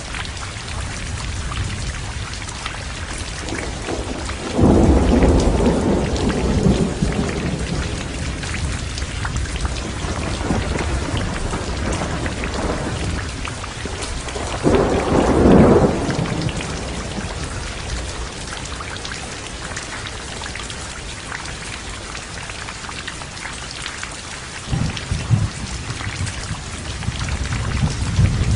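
Heavy rain falling steadily, with thunder rumbling in over it three times. The first two peals come on suddenly, about five seconds in and again around the middle, and each is loud and dies away over a couple of seconds. A lower rumble builds near the end.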